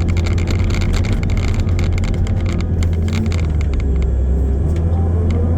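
Heavy equipment engine running steadily, with clanking and rattling over the first few seconds and the engine pitch rising near the end.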